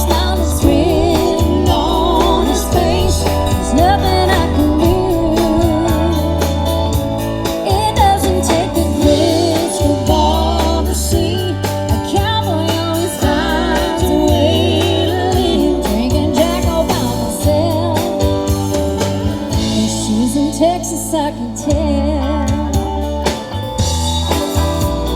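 Country song playing: a steady pulsing bass line under a wavering, vibrato-rich melody, in an instrumental stretch between sung verses.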